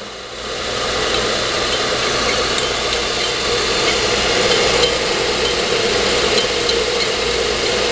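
Accuturn brake lathe running, its motor and drive turning the mounted brake drum with a steady mechanical hum. It grows louder over the first second, then holds steady, with the cutter not yet touching the drum.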